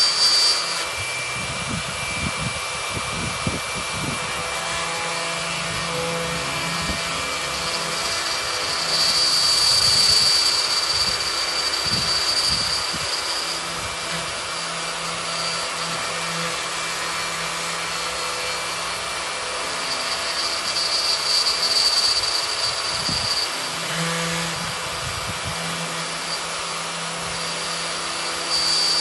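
Electric plunge router running steadily as it cuts into the wooden top of a cable spool, a continuous motor whine with a hiss. The whine swells twice, about ten seconds in and again a little past twenty seconds.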